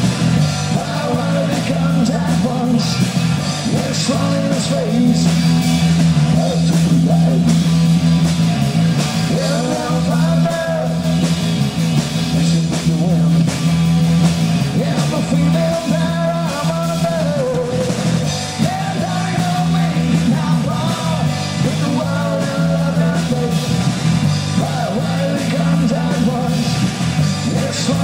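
Rock song with singing over a full band backing, playing continuously.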